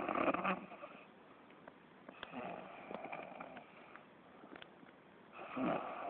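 A sleeping person snoring, one rasping breath about every three seconds: a snore fading out just after the start, another in the middle and a third beginning near the end.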